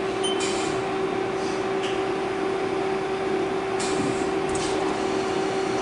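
Haas CNC lathe running its program with the spindle turning but the tool not yet cutting: a steady machine hum, with a few brief hisses.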